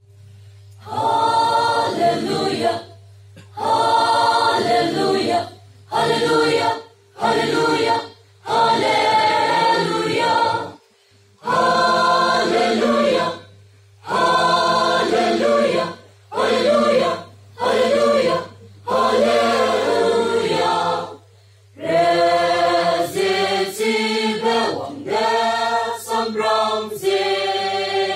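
Mixed choir of men's and women's voices singing a cappella in phrases of one to two seconds, each broken by a short pause. A low steady hum runs underneath.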